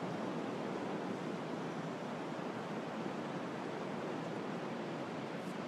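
Ocean surf breaking on the beach, a steady rush of noise.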